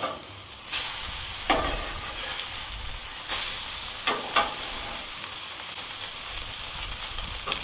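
Smashed burger patties sizzling on a hot griddle plate on a gas barbecue as they are flipped with a spatula. The sizzle jumps up suddenly about a second in and again about three seconds in, as each patty lands on its raw side, with short scrapes of the spatula on the plate in between.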